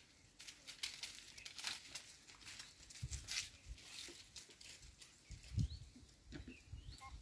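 Goats moving about on a concrete platform: scattered scuffing and rustling from hooves and leaves, with a few low thumps and a louder one about five and a half seconds in.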